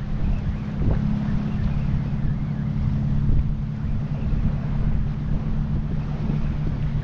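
Wind buffeting the microphone at the seashore, with a steady low drone underneath.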